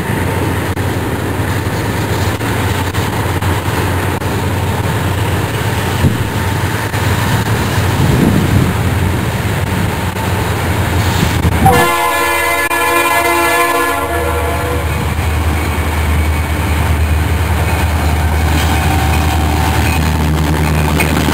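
CSX SD60I diesel locomotive, with its 16-cylinder EMD 710 engine, rumbling steadily as it leads a freight train past. Just past halfway it sounds its air horn in one blast of about two seconds.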